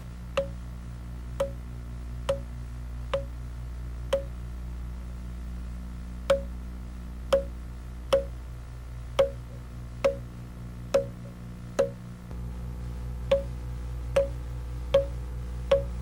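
A mallet driving a chisel into a log, about one blow a second, each a sharp knock with a brief ring: scoring around the outline of a lock notch.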